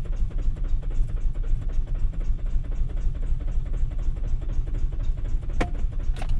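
Nissan Rogue's four-cylinder engine cranking on the starter in a fast, even rhythm without catching. The owner suspects the engine is starving for fuel, from a failing fuel pump or a clogged fuel filter.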